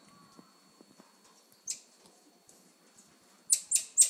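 Squirrel monkey giving short, very high-pitched squeaks: one about two seconds in, then several in quick succession near the end.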